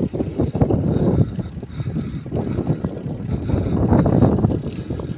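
Wind buffeting the microphone of a handlebar-mounted camera, mixed with the rumble of a road bike rolling on a concrete road. It is a low, gusting rumble that swells and fades from moment to moment.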